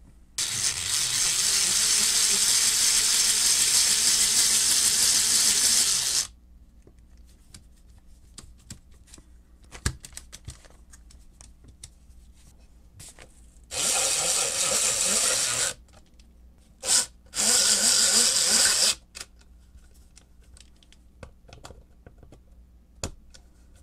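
Wiha SpeedE electronic screwdriver's small motor and gearbox whirring as it spins long terminal screws into a motor starter switch: one steady run of about six seconds at the start, then two shorter runs with a brief blip between them, and a few faint clicks in the quiet gaps.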